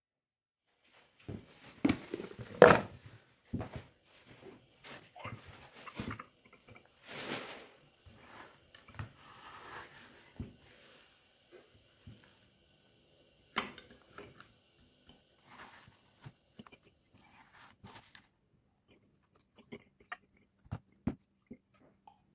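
Metal ice cream scoop scraping through frozen banana ice cream in a plastic tub and clinking against a glass bowl: irregular scrapes, clicks and knocks, the loudest a sharp knock a few seconds in.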